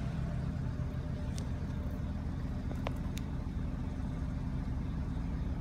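Subaru Sambar kei truck's small four-cylinder engine idling steadily, with a few faint clicks in the middle.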